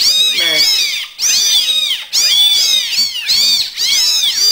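A litter of young kittens mewing constantly: many high-pitched mews overlapping, several a second.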